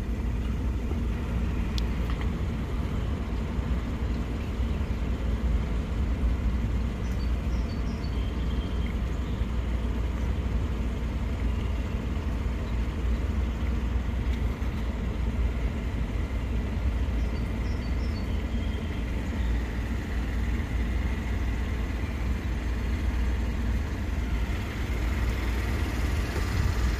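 Steady low outdoor background rumble with no distinct events, lying mostly in the bass, with a few faint high chirps.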